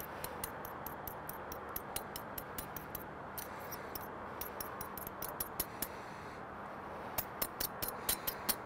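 Light metallic clicks and scrapes of a fork and spoon, several a second, as garlic is scraped off the spoon and spread over pizza dough, over a steady low hum.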